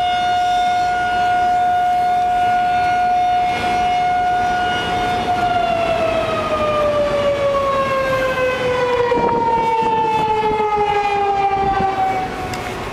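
Loud emergency civil defense siren holding one steady wailing tone. About five seconds in it begins a long, slow fall in pitch as it winds down, and it gets quieter near the end.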